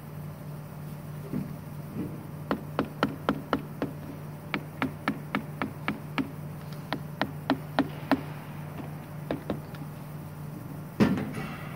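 Wooden mallet tapping a bed-die piece down onto a die-cutting machine's die board: runs of sharp knocks, about three or four a second in short groups, over a steady low machine hum. A single louder thump comes near the end.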